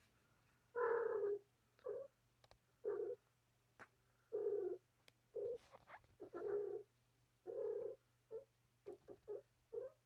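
Domestic cat making a series of short, monkey-like calls, about a dozen with pauses between them, shorter and quicker near the end. A faint steady low hum runs underneath.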